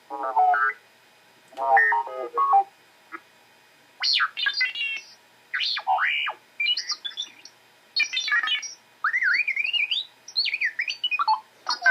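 R2-D2's electronic beeps, chirps and warbling whistles in short phrases with brief pauses between them, including quick rising and falling whistles.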